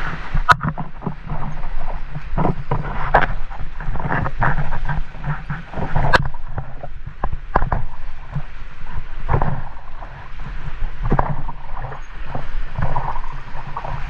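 River water splashing and slapping irregularly around a raft, over a low rush of water and wind on the microphone.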